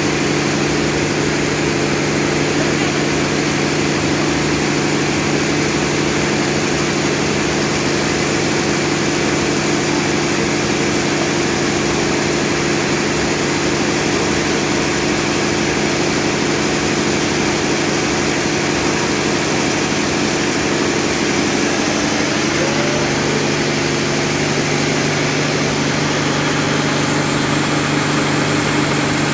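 A motor running steadily with a constant hum and hiss; its tone shifts slightly about two-thirds of the way through.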